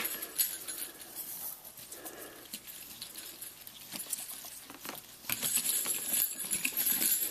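Hands working a leather lace into a knot on a leather collar, with faint scuffs and rubs. About five seconds in, a louder high, rattling jingle starts as the small bells fixed on the collar shake while it is handled.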